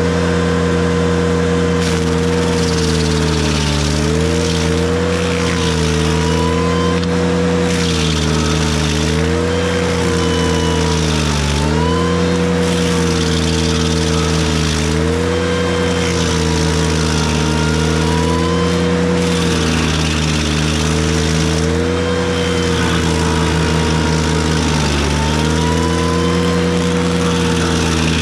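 Ventrac 4520Z compact tractor's engine running hard, its pitch sagging and recovering again and again as the KC220 stump grinder's cutting wheel bites into a stump. A rushing hiss from the cutting rises and falls with each pass.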